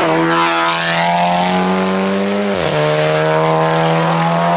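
Race car engine at high revs, pitch held steady, with a quick dip about two and a half seconds in before it climbs back to the same note, as the car pulls away.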